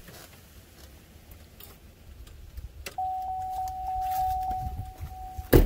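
A click, then a steady electronic warning chime from the GM pickup's cab with a faint regular pulse, sounding for about two and a half seconds. It cuts off with a loud thump of the driver's door being shut.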